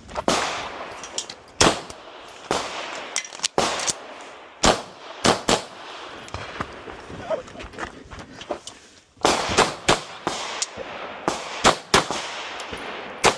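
Airsoft pistol firing a timed string of sharp shots, many in quick pairs, with a lull of about three seconds in the middle before the firing picks up again.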